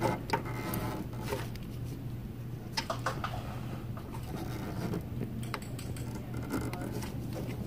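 Light clicks and rubbing from a gloved hand turning the small rotary address dials on an HVAC indoor unit's control board, over a steady low hum.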